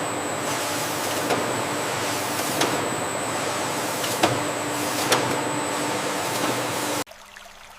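Food-processing machinery running steadily, with a sharp click about once a second. It cuts off suddenly near the end.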